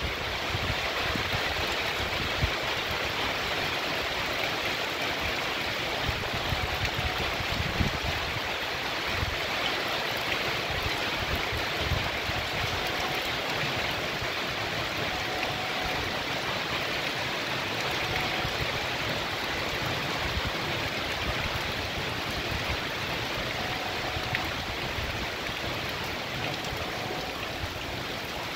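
Heavy rain pouring down steadily, an even rushing hiss.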